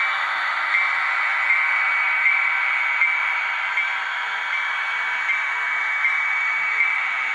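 HO-scale Bachmann DD40AX model diesel locomotive running on its track with a steady whirring noise, a slight regular beat about every three-quarters of a second.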